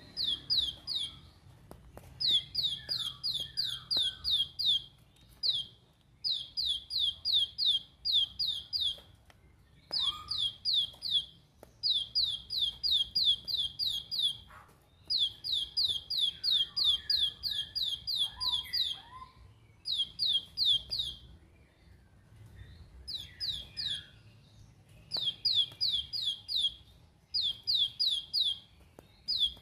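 Plain prinia (ciblek sawah) singing its rapid 'shooting' song: runs of sharp, high, downward-slurred notes, about four to five a second, each run lasting one to two and a half seconds with short breaks between. Fainter, lower twittering from another bird sounds underneath.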